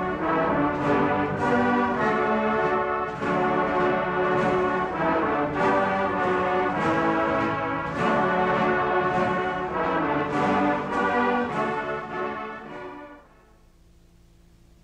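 Brass marching band music with a steady beat, fading out about thirteen seconds in to a faint hiss and hum.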